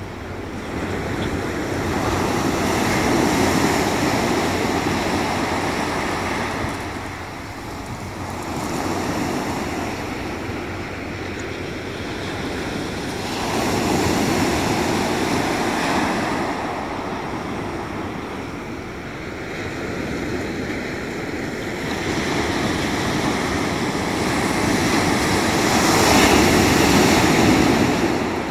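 Sea waves breaking and washing up a pebble beach, swelling and ebbing in slow surges a few seconds apart.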